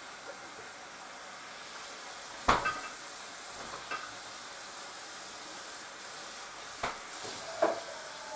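Metal pots and pans clanking against each other and the counter, four sharp knocks that ring briefly, the loudest about two and a half seconds in, over a steady hiss.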